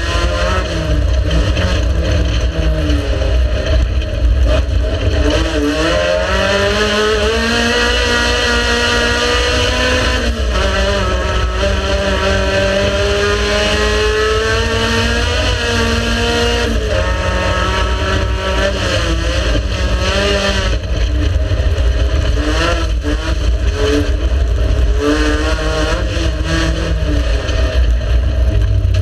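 Race car engine running hard, its pitch climbing in long pulls and dropping sharply at gear changes, over a heavy low rumble.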